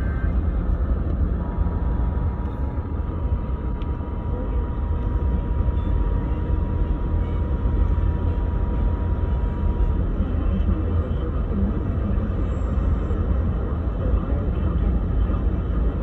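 Steady low rumble and hiss of AM radio reception, with a faint steady tone from about a second and a half in until about ten seconds.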